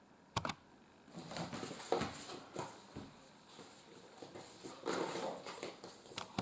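Paper and cardboard being handled: a couple of sharp clicks, then scattered rustling and light taps as a printed leaflet and the cardboard box are moved about.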